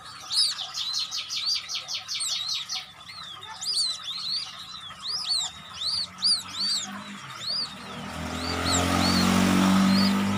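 Newly hatched white-breasted waterhen and quail chicks peeping: short, high, arching chirps several a second, with a fast, even trill of chirps in the first few seconds. Near the end a road vehicle passes, swelling up louder than the chirps.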